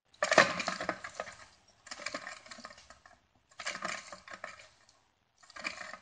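The old alternator from a BMW 328i E92, off the car, its pulley spun by hand four times. Each spin gives a metallic rattle that fades as the pulley slows. The rotor doesn't turn evenly and catches as though something inside is sticking: the source of the car's rattle noise.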